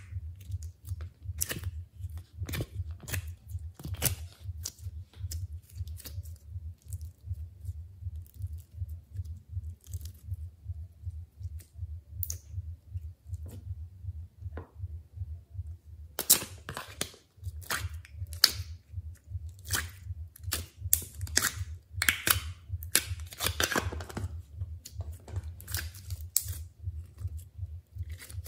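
Sticky glossy slime and foam being squeezed, pressed and stretched by hand, giving scattered wet crackles, pops and squelches that come thicker and louder in the second half. A steady low hum runs underneath.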